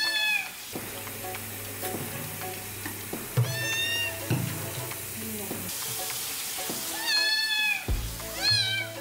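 A kitten meowing in distress during a bath, four high cries each under a second long, over a steady hiss of running water.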